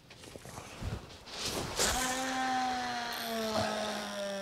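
A sea-fishing rod swished through a gentle cast, then a steady whine that slowly falls in pitch as line runs off the spinning reel while the lead flies out.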